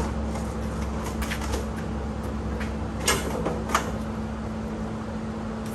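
Small clicks and rattles of hands working the plastic wiring plugs on the golf cart's drive motor from underneath, with two sharper clicks a little past the middle, over a steady low hum.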